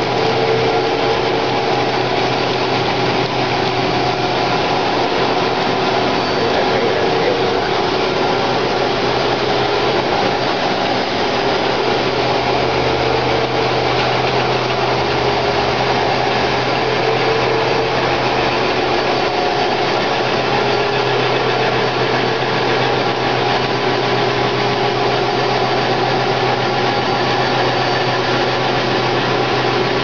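Motor-driven plastic cutting machine running, a white plastic strip fed through it and chopped into flakes blown out of its chute. Its motor gives a steady hum and whir over a dense rushing noise that does not change.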